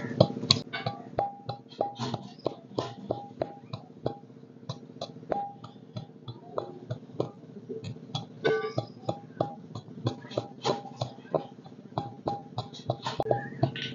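Background music: quick plucked string notes over a steady sustained drone.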